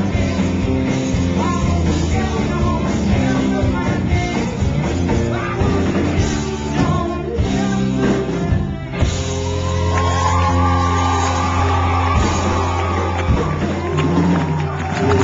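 Live rock band, with two electric guitars, drums and singing, playing loud. About nine seconds in the drums drop away and the band holds a long ringing final chord.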